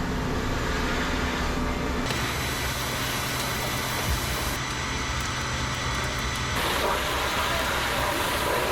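A fire engine's motor and pump running steadily under a wash of noise. The sound changes abruptly twice, about two seconds in and again about two-thirds of the way through.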